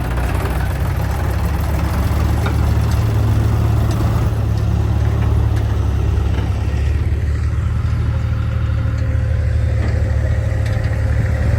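A heavy-machinery diesel engine running steadily, a deep, even drone.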